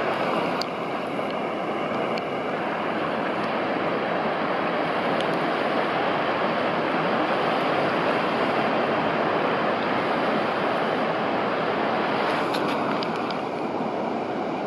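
Steady rushing and churning of a tidal race, fast sea current swirling over a rocky channel at spring-tide flood.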